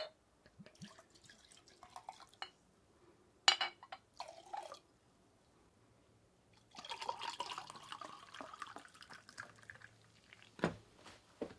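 Shochu and then Hoppy poured from glass bottles into a chilled glass beer mug. There are glass clinks, the loudest one sharp, about three and a half seconds in, and then a few seconds of liquid pouring from about seven seconds in.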